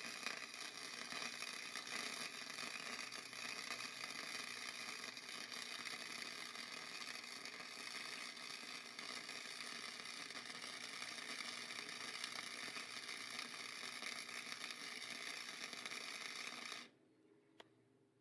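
Electric arc welding: the arc runs steadily while a bead is laid, then cuts off suddenly about 17 seconds in as the arc is broken.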